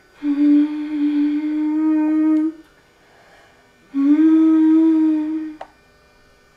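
A voice humming two long, steady notes at the same pitch with a pause between them; the second note bends up slightly as it starts.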